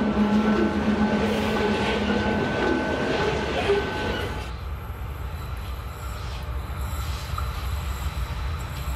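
Freight train passing: steady droning tones over a rumble for about the first four and a half seconds, then only the lower rumble and rattle of the cars rolling by.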